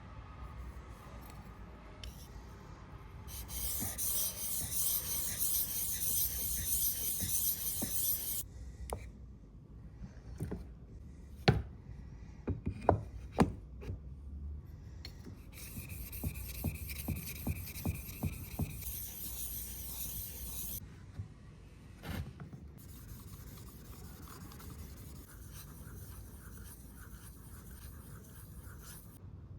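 Hand rubbing or filing strokes in two long spells, with a few sharp clicks and knocks in between and fainter scraping after.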